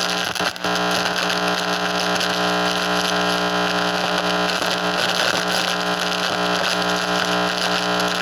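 Loud electrical buzz and static from a Pasco microwave receiver's audio output: a steady multi-tone hum under crackling hiss, briefly dipping about half a second in.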